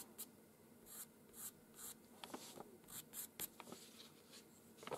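Pastel pencil scratching faintly across paper in a string of short, quick strokes, with a sharper click near the end.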